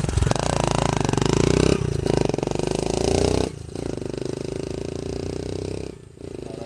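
Hero motorcycle's single-cylinder engine running through a Pepsi bottle wired onto its exhaust silencer, a home-made change meant to make it sound like a KTM. The engine pitch rises twice, breaking off sharply about two and three and a half seconds in, as when accelerating through the gears, then carries on more steadily.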